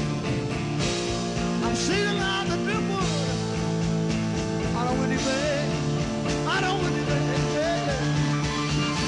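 Rock music in an instrumental passage: a lead guitar plays bending, sliding notes over the band's steady backing.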